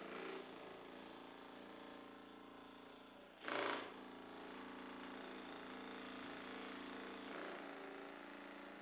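Handheld percussion massage gun running while pressed into the gluteal muscle: a steady motor hum with a rapid tapping buzz that wavers slightly in pitch as the pressure changes. A brief, loud rushing noise breaks in about three and a half seconds in.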